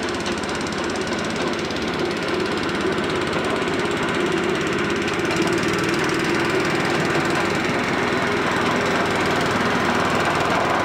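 Petrol engine of a 7¼-inch gauge miniature railway locomotive running steadily as the train moves along, with a rapid, even beat.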